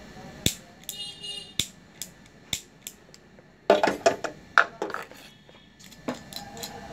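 Sharp metallic clicks and clinks from small gas-stove valve parts being handled and fitted by hand, with a brief metallic ring about a second in and a quick cluster of louder knocks about four seconds in.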